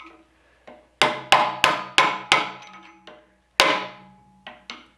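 Ball-peen hammer striking a steel chisel driven into a delaminated forge-welded billet held in a vise, splitting off its outer layers where the weld failed. It hits five times in quick succession, pauses, lands one hard blow, then a few lighter taps, and each strike leaves the steel ringing.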